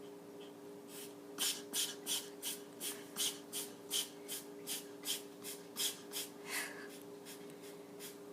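A cat sneezing over and over in a rapid fit: about fifteen short sneezes at roughly three a second, starting a little over a second in.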